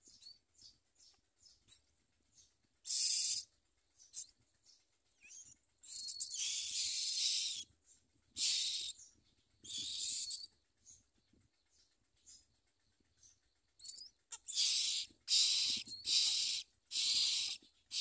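Common myna nestlings begging with harsh, hissing calls in separate bursts, one long one midway and a quick run of them near the end: chicks gaping and calling for food.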